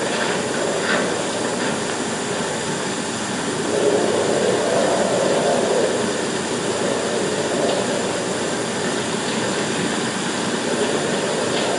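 Storm wind rushing steadily, swelling about four seconds in and again near the end, over the hiss of an old 16mm film soundtrack.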